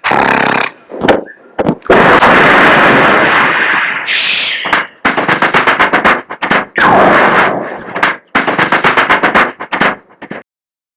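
Vocal mimicry of battle sounds: a man making gunfire and explosion effects with his mouth, with sharp blasts, a long explosion-like rush, and then rapid bursts of machine-gun fire at about seven shots a second.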